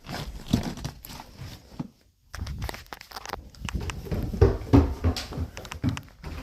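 Irregular rustling, clicks and knocks with a short pause about two seconds in, the loudest knocks about four and a half seconds in.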